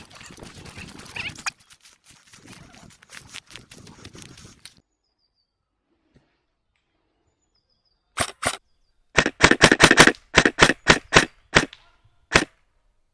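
Airsoft gun firing close by: two sharp shots, then a rapid string of about a dozen shots at roughly five a second, then one more. Before that comes rustling movement with a few clicks, then a brief hush.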